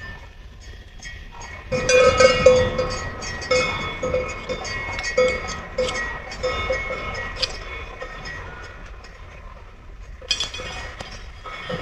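Cowbells clanking irregularly, each strike ringing with a bright metallic tone. They start about two seconds in, thin out, and come back in a short burst near the end.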